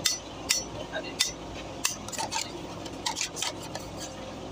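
Hammer striking a punch on a steel truck clutch plate to knock out the rivets holding the clutch lining. A dozen or so sharp metallic taps come at uneven intervals, with loose rivets and plates clinking.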